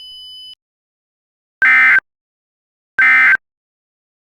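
Emergency Alert System end-of-message data bursts: two short, identical, buzzing digital bursts about 1.4 seconds apart, a third beginning right at the end. These are the SAME code tones that signal the alert message is over. A faint high steady tone sounds for the first half second.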